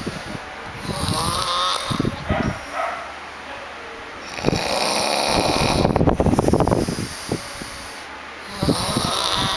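Snoring: three snore breaths about every three to four seconds. The middle one is the longest and loudest, with a fluttering rattle.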